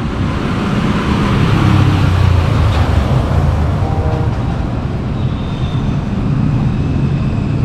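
Road traffic running past, a steady rumble and hiss that is loudest about two seconds in.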